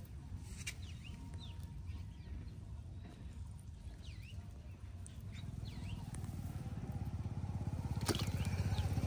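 A small engine running with a rapid, even pulse, growing louder over the last few seconds as it comes closer. Short bird chirps come now and then, and there is one sharp click near the end.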